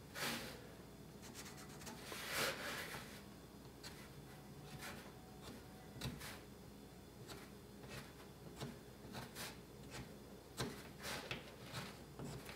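Faint scratching and ticking of a carpenter's pencil marking out the profile on a carved wooden moulding strip, in short irregular strokes, with a longer scratch about two seconds in.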